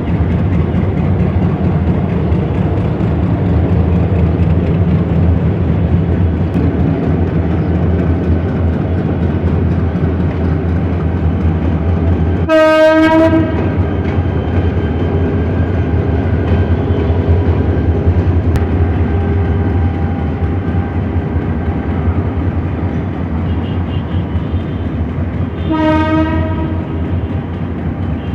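Bangladesh Railway metre-gauge diesel locomotive 2714 running with a steady low engine hum. Its horn sounds twice, a short blast about halfway through and a weaker one near the end.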